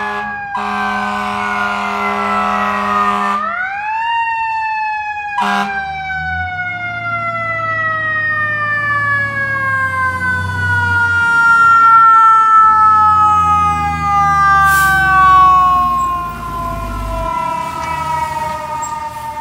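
Fire engine responding with its siren on: a short steady low horn blast, then the siren rises sharply and winds slowly down in pitch for many seconds. The truck's diesel engine rumbles underneath as it passes.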